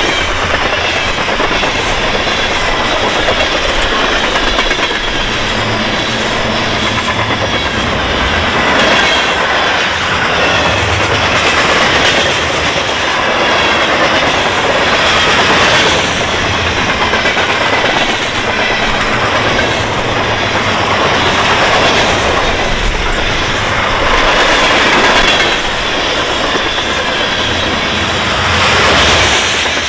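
Freight cars rolling past close by: a loud, steady noise of steel wheels on rail that swells every few seconds as the cars go by.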